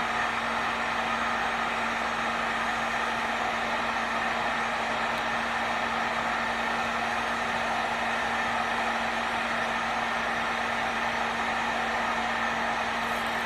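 Heat gun running steadily, its fan blowing with a constant motor hum, as it warms the vinyl graphic so it will stretch over an edge.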